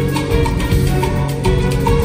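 A live band playing Latin-style rehearsal music, with drum kit and percussion keeping a steady quick beat of about four strokes a second under bass and guitar.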